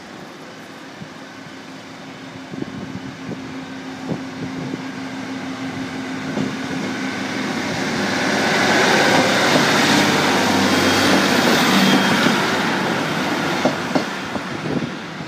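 Diesel multiple unit passenger train pulling away from the station and passing close by over a level crossing. Its engine note and wheel noise build to a peak about two-thirds of the way through, with sharp clicks of the wheels over the rail joints, then ease off.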